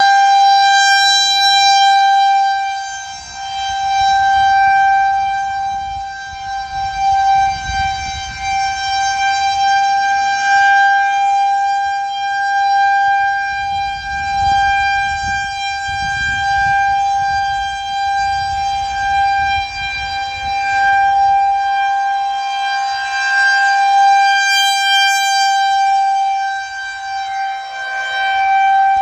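Federal Signal 2001-130 rotating outdoor warning siren sounding a steady, unbroken tone for a tornado warning. Its loudness swells and fades every few seconds as the rotating head sweeps past.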